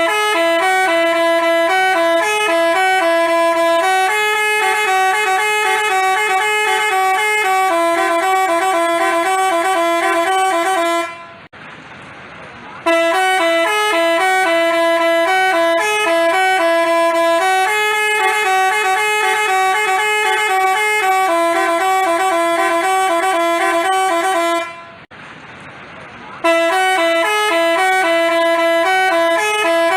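Multi-tone Basuri 'telolet' bus horn playing a stepping melody. The tune breaks off about 11 and 25 seconds in and starts over each time.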